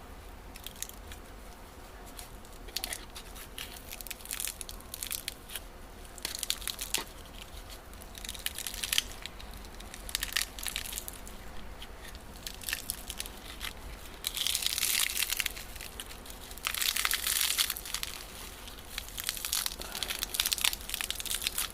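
Old adhesive tape being peeled and torn off a pocket knife's handle, with crackling, crinkling tears in irregular spurts and two longer pulls in the second half.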